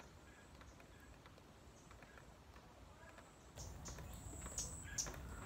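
Faint outdoor ambience with scattered short bird chirps. About three and a half seconds in it gets louder, with a low rumble and a couple of sharp clicks.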